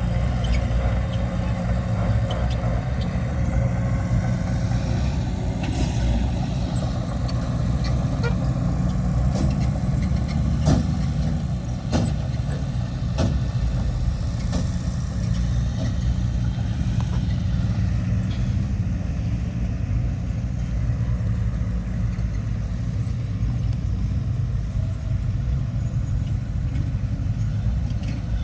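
Heavy diesel earthmoving machinery running steadily with a low engine drone, with a few sharp metallic knocks partway through.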